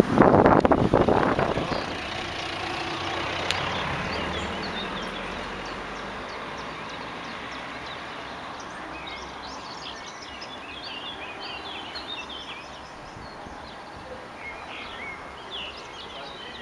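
A brief loud rush of noise in the first couple of seconds, then a steady outdoor background in which many small birds chirp and sing from about nine seconds in.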